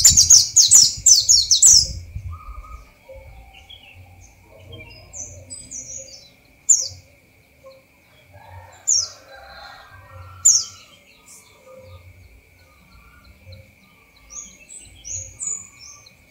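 Caged pleci dakun (white-eye) singing in its natural 'ngalas' style. It opens with a loud, fast trill of high notes for about two seconds, then gives short, high, separate chirps every couple of seconds, with a quick run of notes near the end. A faint steady high-pitched tone runs underneath.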